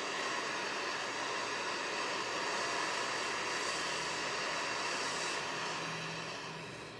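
Handheld gas torch on a yellow fuel cylinder hissing steadily as its flame plays over a freshly poured silver bar in its mold. It fades and cuts off near the end as the valve is closed.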